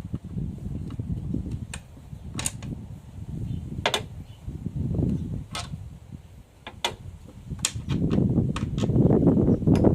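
Scattered sharp clicks and knocks over uneven low rumbling handling noise, louder in the last two seconds.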